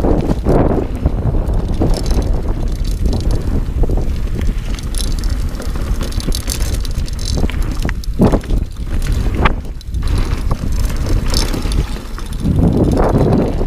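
Dartmoor Primal 29er hardtail mountain bike descending a dirt trail: steady tyre rumble and wind rushing over the camera microphone, with scattered knocks and rattles from the bike over bumps and rollers.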